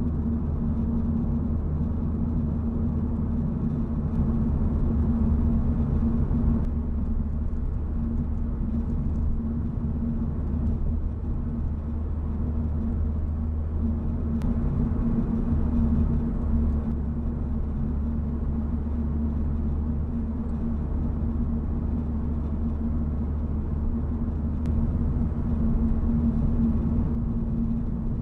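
Honda Civic Type R (FL5) cruising at a steady speed: a continuous low drone of engine and road noise with a steady hum.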